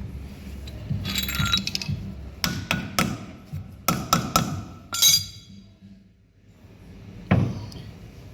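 Metal tools clinking and striking against metal parts: several sharp, ringing clinks in quick runs, a short pause, then one more strike near the end.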